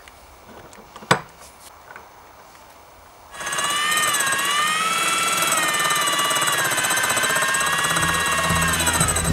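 A corded electric drill starts a little over three seconds in and runs with a steady whine, its pitch dipping and recovering as it drives the hand grinder's wheel through the crank shaft. An abrasive block is held against the spinning wheel to dress it. A single sharp click comes about a second in.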